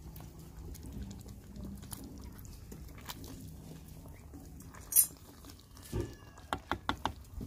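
Flat wooden spatula stirring chicken curry in a clay pot, scraping and knocking against the earthenware, with one sharp knock about five seconds in and a quick run of clicks after it.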